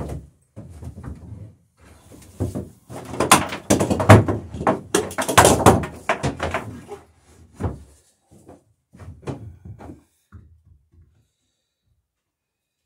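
A run of hammer blows driving a nail into a dory's wooden rail, closely spaced and loudest through the middle, then a few lighter taps before stopping.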